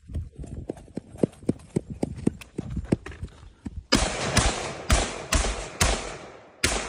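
Running footsteps thudding at about four a stride a second, then six loud shots from a semi-automatic M14 rifle in 7.62×51 mm NATO, fired roughly half a second apart.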